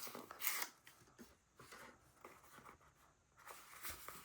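Faint rustling and scraping of a small white cardboard box and its paper being handled and opened, loudest in the first half second, with a few softer rustles later.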